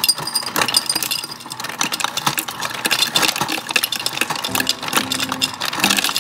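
Refrigerator door ice dispenser running, with ice cubes clattering steadily down into a glass mason jar over the hum of the dispenser motor.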